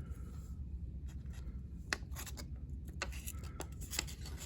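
Small multitool knife blade scraping and cutting in short scratchy strokes with a few sharp clicks, a test cut that shows the plain-edge blade is not very sharp.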